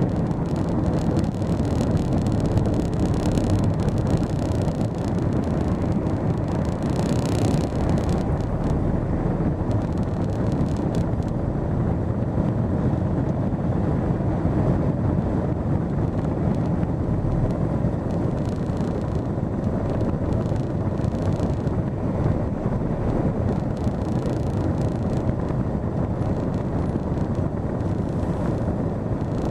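Steady engine and road noise inside a car's cabin while it drives, with a short rise in hiss about seven seconds in.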